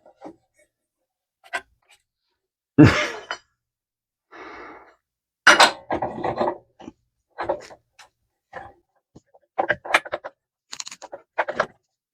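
Sped-up handling noises of a drive belt and metal parts being worked on a lawnmower: scattered short knocks, clinks and scrapes at irregular intervals, with a few longer clattering bursts.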